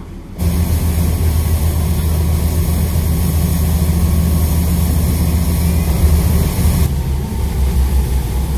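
Steady, loud, low engine drone of a vehicle. It starts suddenly about half a second in, and the hiss above it thins out near the end.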